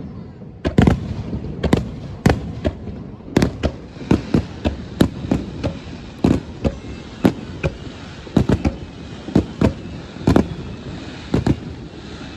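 Aerial fireworks bursting in quick, irregular succession, about two sharp bangs a second, over a steady low rumble.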